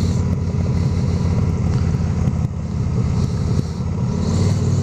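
Motorcycle engine running while riding through winding bends, with wind noise on the microphone. The engine eases off briefly about halfway through and settles into a steadier note near the end.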